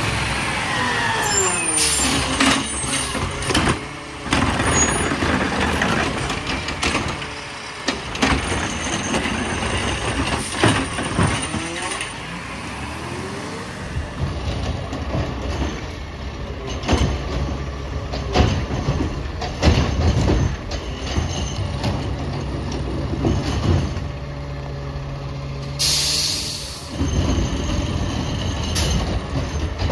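Peterbilt 520 garbage truck with a McNeilus ZR automated side-loader body working cart pickups. The diesel engine rises and falls in pitch as the hydraulic arm cycles, with repeated knocks of carts being dumped and handled. Near the end there is a sharp hiss of air-brake release.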